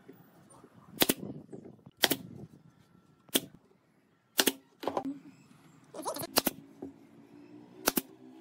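DCA pneumatic brad nailer firing brads into a curved wooden rim, about seven sharp shots roughly a second apart.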